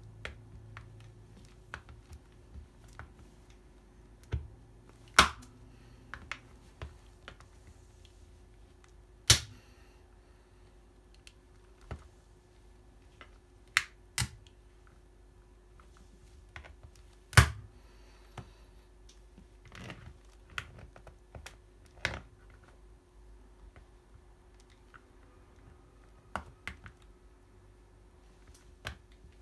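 Plastic calculator pressed under metal-spiked track shoes: scattered, irregular sharp clicks and cracks from its keys and case, the loudest about five, nine and seventeen seconds in.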